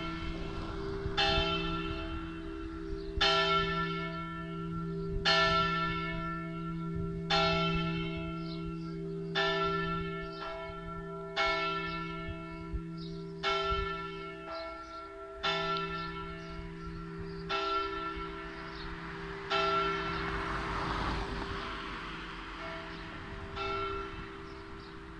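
Large bronze church bell cast by Giovanni Battista De Poli in 1921, tuned to E3 slightly sharp, swung full circle in the Friulian style (a slancio). Its clapper strikes about every two seconds, and each stroke rings out over a steady low hum that carries on between strokes, with a longer gap before the last stroke near the end. It is the big bell tolled alone as the last call to a funeral mass.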